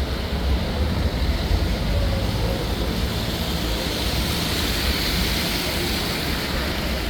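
City street traffic noise: a steady low rumble, with a vehicle passing whose hiss swells and fades about four to six seconds in.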